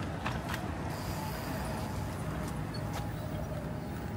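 City street ambience: a steady low rumble of traffic, with a few short sharp ticks near the start and again about three seconds in.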